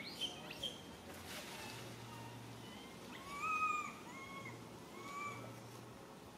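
Infant macaque crying: two short squeaks near the start, then a string of short, high, slightly arching cries, the loudest about three and a half seconds in.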